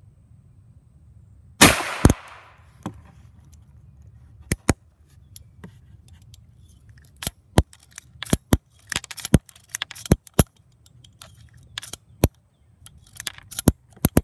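A single shot from a Ruger Single Six .22 LR revolver about a second and a half in, its echo trailing off over about a second. It is followed by a long string of sharp metallic clicks as the revolver's loading gate and cylinder are worked by hand.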